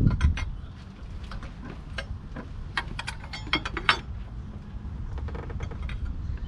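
Large metal wrench clicking and clinking as it is worked on the fan clutch's nut, threading the fan back onto the water pump hub. Scattered light clicks and knocks over a low steady background rumble.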